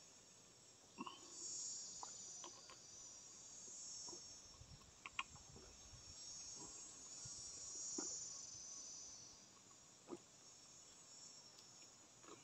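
Faint, steady high-pitched chorus of insects, with a soft gulp every couple of seconds as a man swallows long drinks from a plastic bottle.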